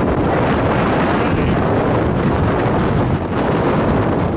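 Strong wind close to a tornado buffeting the microphone: a loud, steady rush of noise.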